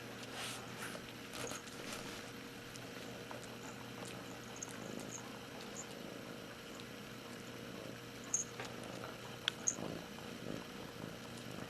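Soft, steady purring from a small animal, with a few faint high squeaks and a few sharp clicks about eight to ten seconds in.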